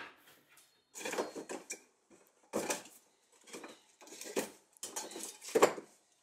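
Soil being dug and shifted between garden containers: a series of irregular scraping, rustling scoops with small clatters.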